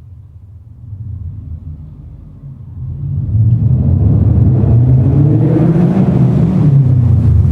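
Subaru EJ20 flat-four, non-turbo, with an unequal-length header and a 3-inch catless exhaust, rumbling low and then pulling hard about three seconds in. It gets loud and its note climbs, then drops near the end.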